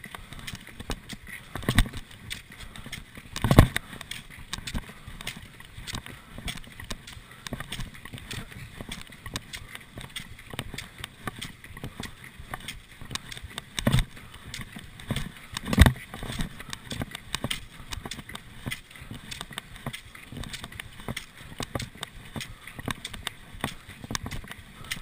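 Cross-country skis running in a classic track, with a steady patter of clicks and knocks from the skis and poles striking the snow, and a few louder knocks among them.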